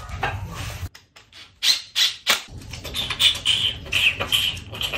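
Flat-pack chair assembly: a few sharp knocks of parts and tools, then a run of high-pitched squeaky sounds.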